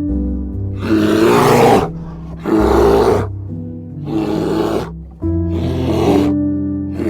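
Background music with steady sustained notes, over which an animal gives about five rough, breathy calls, each under a second long.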